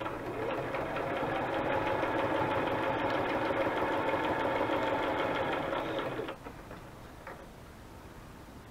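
Sewing machine running a straight stitch steadily, stitching through paper, then stopping about six seconds in.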